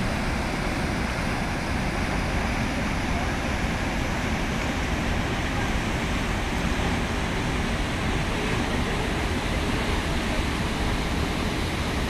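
Steady rushing of the Kivach waterfall and the white-water rapids below it on the Suna River.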